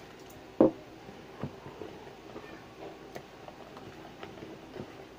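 Quiet stirring of chocolate cake batter in a plastic mixing bowl: soft scrapes and light taps of the utensil against the bowl. There is one sharp knock about half a second in, and a few fainter clicks later.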